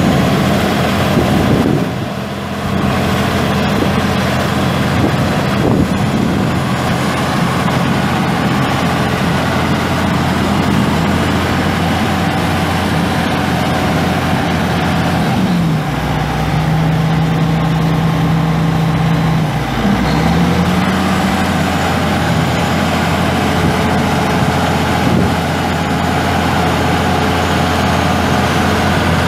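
Caterpillar C15 ACERT six-cylinder turbo diesel of a Challenger MT945C tractor running steadily. About halfway through, its pitch drops for around four seconds, then comes back up.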